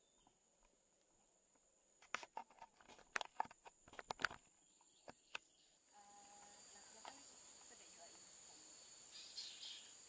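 Faint outdoor background with a thin, steady high-pitched whine. About two seconds in comes a quick, irregular run of sharp clicks and crackles lasting a couple of seconds, followed by two more single clicks. A brief high chirp sounds near the end.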